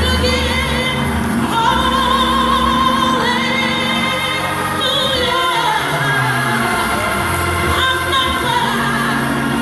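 A woman singing a gospel song in long held notes with vibrato, over a steady instrumental accompaniment.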